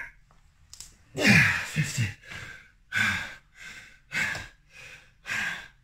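A man breathing hard and gasping, a breath about every half second to second, with short falling grunts of effort between about one and two seconds in: the sound of near-exhaustion during ab-wheel rollouts.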